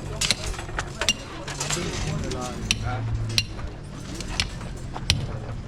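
Irregular sharp clinks and knocks of hard tools striking stone or concrete on a construction site, several a second, over a low steady hum.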